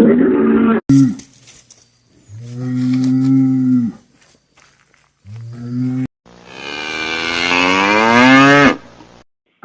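Cattle mooing: about four separate moos cut one after another, including a long low moo near the middle and a long final call that rises in pitch before breaking off.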